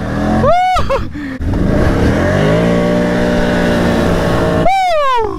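An ATV engine revs up and holds steady at high revs while driving through deep mud and water. A rider whoops about half a second in, and another falling whoop comes near the end.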